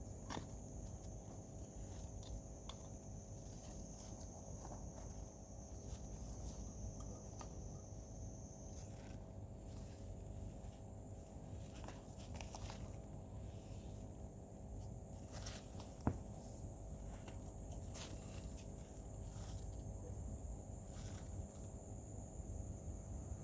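Outdoor ambience: a steady high-pitched insect trill over a low rumble, with scattered soft clicks and rustles and one sharper click about 16 seconds in.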